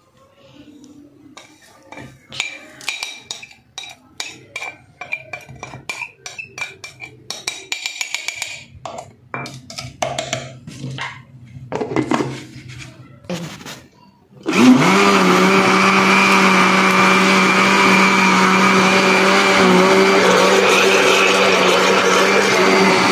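Light clinks and knocks of a spoon, glass plate and blender jar as spices go in and the lid is fitted. About fourteen seconds in, an electric blender starts with a brief rising whine and runs steadily, grinding a batter of yogurt, gram flour, spices and water.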